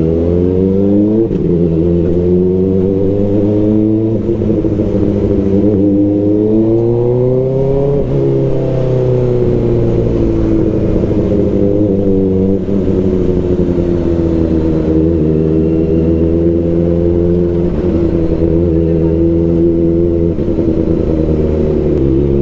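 Kawasaki Ninja ZX-4RR's inline-four engine running through an SC Project CRT exhaust, its pitch rising and falling. It drops sharply about a second in, climbs steadily for several seconds, eases back down and holds, then climbs again at the very end.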